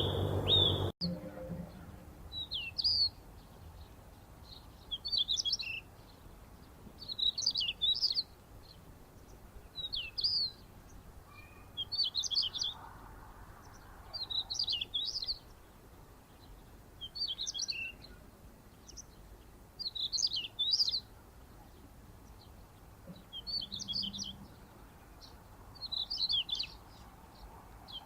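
A songbird singing the same short, jumbled, high-pitched phrase over and over, about every two to three seconds. In the first second a different, steadier series of chirps cuts off abruptly.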